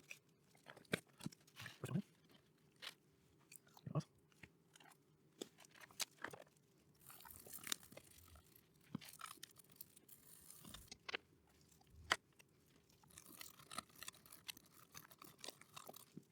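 Stiff-bristled brush scrubbing a soldered circuit board clean, faint scratchy passes among scattered light clicks and taps.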